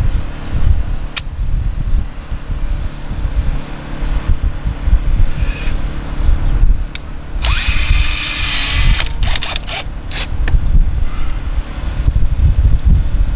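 Cordless drill driving self-tapping screws into a van's sheet-metal roof in short runs, with a longer, louder run about seven and a half seconds in, over a heavy, uneven low rumble.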